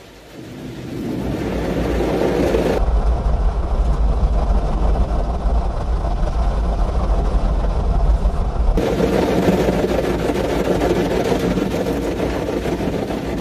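Automatic car wash heard from inside the car: rotating brushes and water spray washing over the bodywork, with a steady deep rumble taking over in the middle stretch before the brush noise returns.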